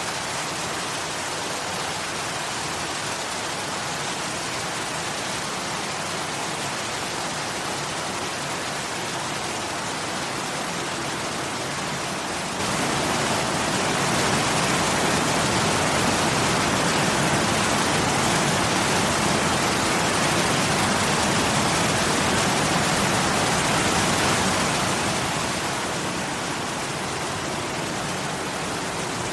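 Waterfall: a steady rush of falling water. About twelve seconds in it turns abruptly louder and fuller. Near the end it eases back down.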